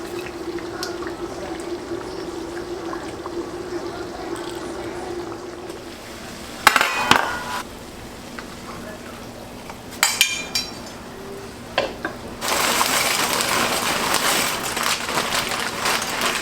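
Dishes clinking and knocking, with two sharp ringing clinks a few seconds apart, then water running for about five seconds near the end. A steady low hum sounds during the first six seconds.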